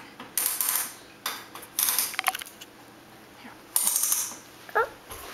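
Knob on a wooden toy play kitchen being turned, giving ratcheting clicks in four short spells. A short rising squeak near the end.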